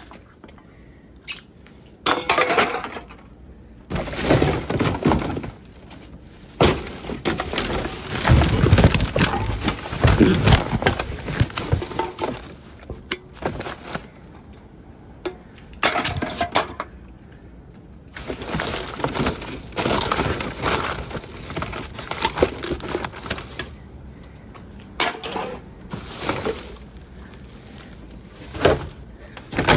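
Hands rummaging through a wheelie bin full of recycling: cardboard and plastic rustling, with cans and bottles clinking and knocking together in bursts between quieter pauses.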